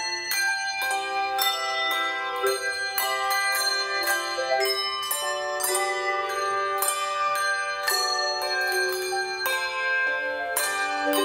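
Handbell choir playing a piece: struck handbells sounding notes and chords that ring on over one another, with a new strike every half second or so.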